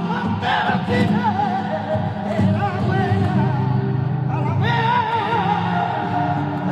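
Male flamenco singing (cante), the voice drawing out long wavering, ornamented lines over a steady low musical backing.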